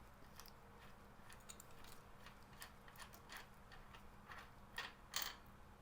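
Faint scattered clicks and light metallic taps from hand tools and parts being handled while a motorcycle's yoke bolts are undone, with a few louder clicks near the end.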